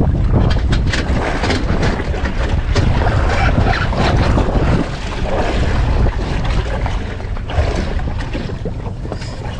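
Wind buffeting the microphone on a boat, with choppy water sloshing against the hull.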